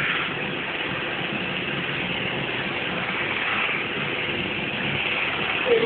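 Steady engine-like running noise, with a brief falling squeak near the end.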